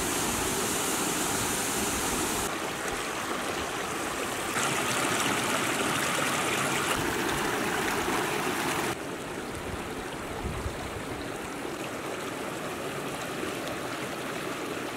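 Shallow rocky mountain beck rushing and splashing over boulders and stones: steady water noise whose tone and loudness shift abruptly several times, a little quieter from about nine seconds in.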